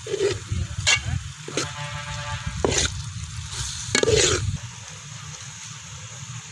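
Onion-tomato masala with freshly added ginger-garlic paste sizzling in hot oil, with a ladle scraping and stirring it in the pan several times. Stirring is needed at this stage, or the paste sticks to the bottom.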